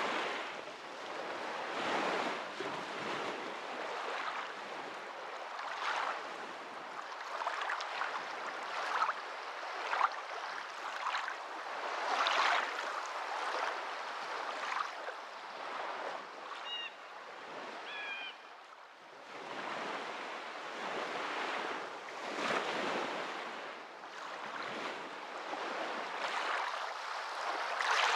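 Water washing in uneven surges that swell and ease every second or two, like small waves lapping on a shore. A few brief high chirps are heard about two-thirds of the way in.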